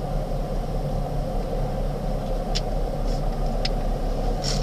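Steady low rumble of a car idling, heard from inside the cabin while waiting stationary in line. A few short, sharp high ticks come in the second half.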